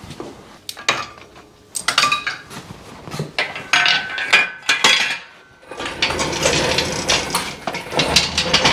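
A shop engine hoist being handled and moved back from the car: scattered metal clinks and clanks, then, from about six seconds in, a continuous rattling as the hoist is rolled across the floor.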